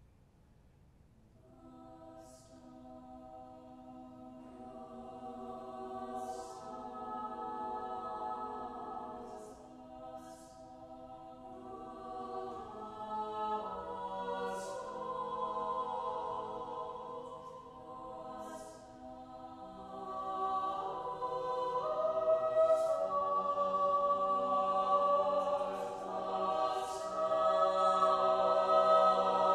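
Mixed-voice chamber choir singing a cappella: held chords that come in softly about a second in and swell gradually louder, with crisp hissing consonants sung together every second or two.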